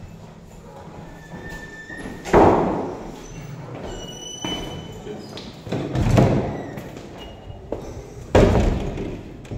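Heavy doors thudding shut, three thuds a few seconds apart, each with a short echoing tail, and brief high squeaks between them.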